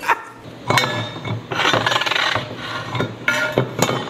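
Metal parts clinking, scraping and knocking together as gears are tried for mesh, with sharp ringing clinks about a second in and twice near the end.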